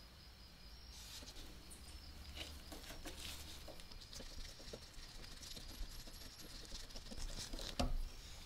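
Rusty metal parts of a cast iron coin bank scraping and clicking as a thin painted metal plate is worked loose from the frame, with a sharper knock near the end.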